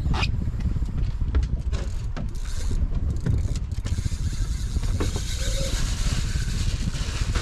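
Low, uneven rumble of wind and water around an open boat at sea, with scattered knocks and clicks on deck and a stretch of hiss in the middle.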